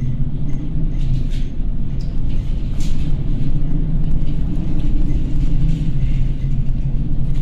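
A tanker's machinery and hull vibration give a steady low hum, with wind and sea rushing over it as the ship pitches through rough water.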